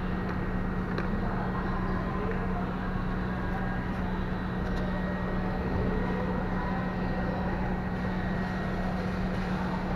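A steady machine hum over a constant noise, with a few faint light clicks.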